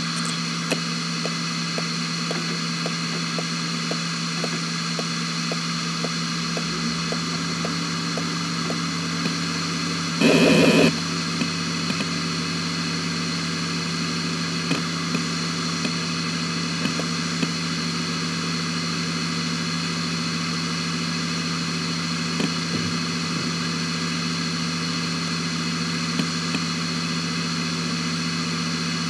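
Hitachi Ultrastar C10K147 2.5-inch 10,000 rpm SAS hard drive running at full speed, with a steady hum and a high whine. Light regular head ticks, about two a second, for the first several seconds, then a brief loud buzz about ten seconds in, and a few scattered seek clicks after that.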